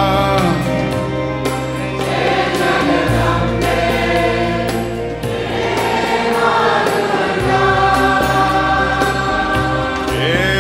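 Background music: several voices singing long held notes over a sustained low bass note that shifts pitch twice.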